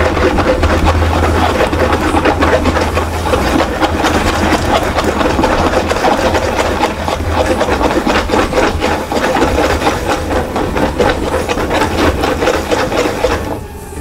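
Wire whisk stirring flour into batter in a metal bowl: a fast, continuous scraping and rubbing against the bowl that stops near the end.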